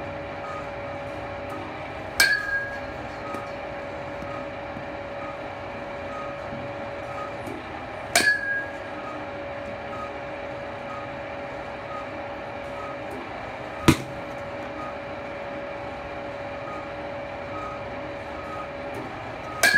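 Metal baseball bat hitting balls from a batting-cage pitching machine, a sharp crack about every six seconds. Three of the four hits ring briefly and one is dry. A steady hum from the pitching machines runs underneath.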